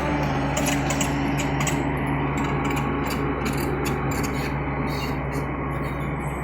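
Case 888 excavator's diesel engine running steadily, with repeated cracking, snapping and scraping of wood as the house is torn apart.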